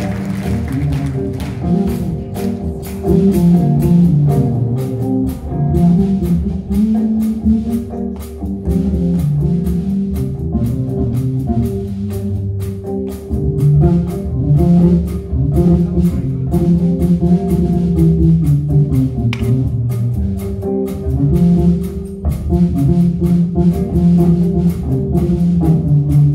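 A live rock band plays an instrumental passage with no vocals. A moving bass guitar line and drum kit hits carry it, with a held keyboard or guitar tone over the top.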